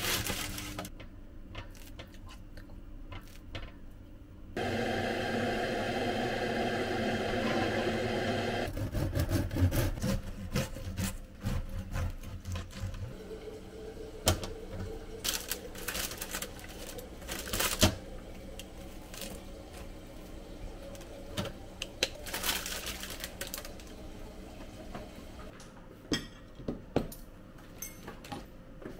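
Serrated bread knife sawing through the crust of a freshly baked whole-wheat sourdough loaf, with crunchy crackling strokes. Parchment paper rustles and dishes click on the table. A steady hum runs for about four seconds near the start.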